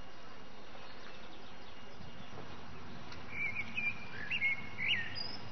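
A songbird singing a short phrase of clear whistled notes with quick upward sweeps, starting about three seconds in, over a steady background hiss.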